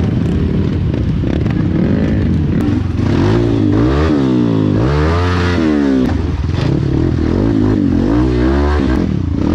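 Trail motorcycle engine being revved, its pitch rising and falling over and over as the throttle is blipped, over a steady low engine rumble.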